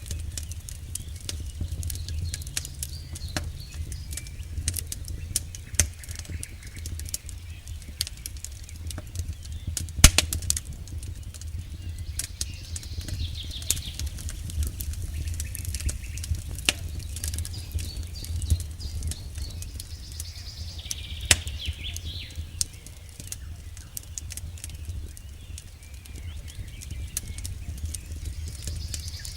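Campfire of burning firewood crackling, with irregular sharp pops and snaps of the logs, the loudest about ten seconds in, over a steady low rumble.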